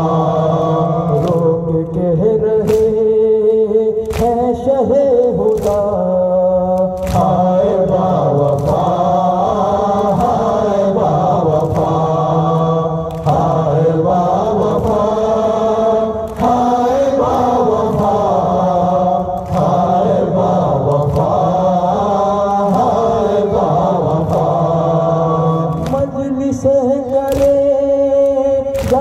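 A men's group chanting an Urdu noha (lament) in unison, with sharp chest-beating (matam) strikes keeping time.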